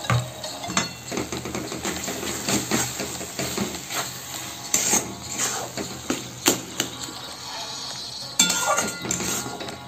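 A flat metal spatula scraping and knocking against a steel kadai, stirring cream into a thick masala. The clanks come irregularly, with the sharpest about six and a half and eight and a half seconds in.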